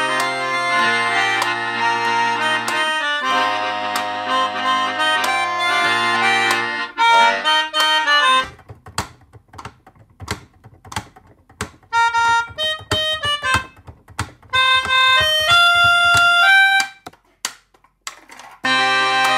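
Layered melodicas playing a pop-rock song arrangement: sustained reedy chords over a low bass line, then about halfway a sparse stretch of single melody notes over a regular clicking beat. After a short pause near the end, the full chords come back.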